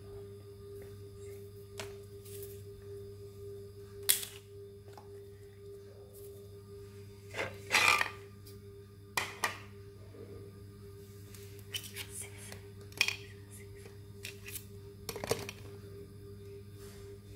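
Pens and markers knocking and clacking as they are dropped into a cardboard toilet-roll pen holder, a dozen or so separate sharp clicks and knocks, with a cluster near the middle, over a steady low hum.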